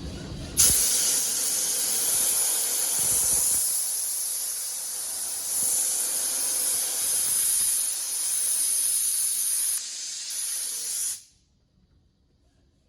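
A steady spraying hiss that starts suddenly, dips briefly near the end, and cuts off sharply after about ten seconds.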